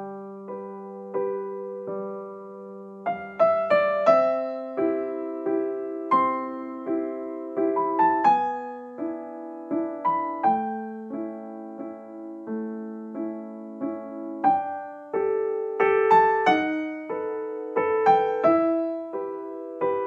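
Background music: slow solo piano playing chords and single notes that ring and fade.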